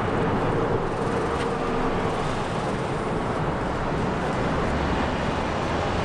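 Steady road traffic noise, an even rumble with no distinct events standing out.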